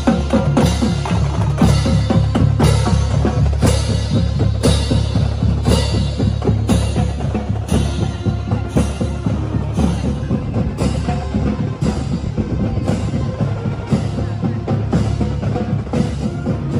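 Marching drumline playing a cadence: bass drums striking a steady beat about once a second under busier snare drum patterns.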